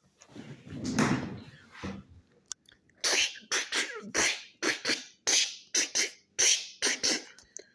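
A person making mouth sound effects, likely voicing play-construction noises: a low breathy sound about a second in, then short hissing bursts about twice a second.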